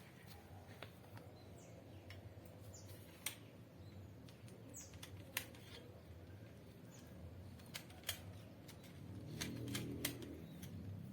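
A few sharp clicks, scattered and irregular, over a faint low hum.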